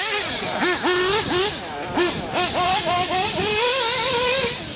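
Small glow-fuel engines of 1/8-scale RC buggies revving, the pitch swooping up and down with each blip of the throttle. Near the end one engine holds a steadier, slowly rising pitch, then stops.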